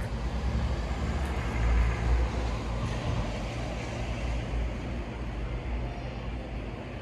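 Steady low rumble of road traffic, swelling slightly about two seconds in.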